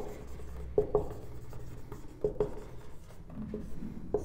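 Dry-erase marker squeaking and scratching on a whiteboard as a word is written, in a series of short strokes with brief squeaks.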